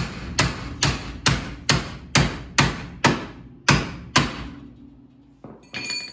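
Hammer blows on a steel pickle fork, about ten in steady succession at a little over two a second, driving it in to break a tapered suspension joint loose from the front spindle. A brief metallic ring near the end.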